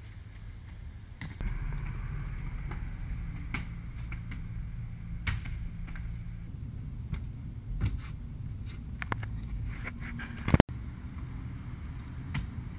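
Street noise: a steady low rumble of traffic, with scattered sharp knocks of shoes landing on pavement and stone. An abrupt loud click about ten seconds in.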